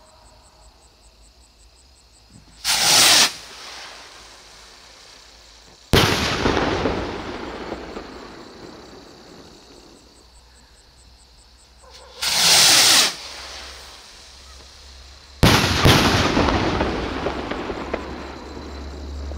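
Two Funke Bomben Raketen stick rockets fired one after the other. Each leaves with a short whoosh and bursts about three seconds later in a loud bang that echoes away slowly; the second burst is a quick double bang.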